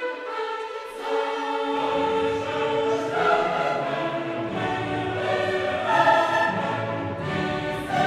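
Background choral music with orchestra: sustained sung chords, with low instruments coming in about two seconds in.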